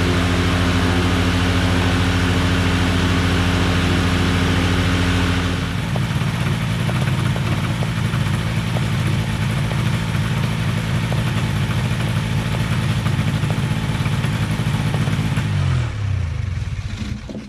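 Quad City Challenger 2 ultralight's liquid-cooled engine and propeller on its first ground run. It runs steadily at a higher speed, is throttled back about six seconds in to a lower, choppier idle, and is shut off near the end, its pitch falling as it winds down.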